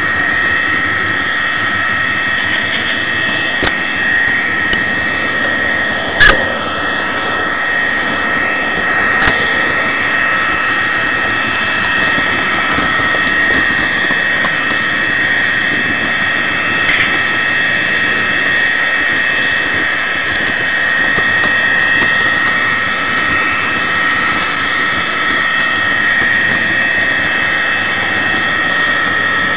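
Mehano Class 66 (EMD JT42CWR) model locomotive running with its LokSound decoder playing a steady diesel engine sound through its small speaker, mixed with the rolling noise of the model train and a steady whine. A sharp click comes about six seconds in, and fainter ones come later.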